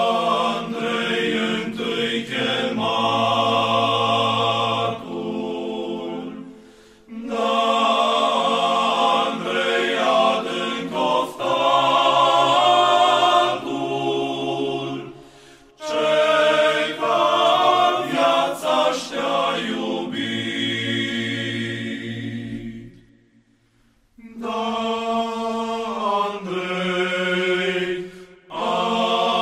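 Choir singing Orthodox church chant over a held low drone note, in long phrases broken by short breaths of pause.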